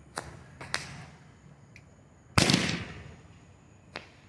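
Roman candle firing its shots: sharp pops about a quarter and three quarters of a second in, a much louder bang about two and a half seconds in that trails off over about a second, and a small pop near the end.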